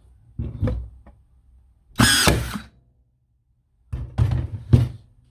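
Ryobi One+ 18V 16-gauge cordless nailer driving nails into hard wood with its power turned up: a pair of thuds about half a second in, a louder, ringing shot with a brief whine about two seconds in, and a quick cluster of knocks near the end.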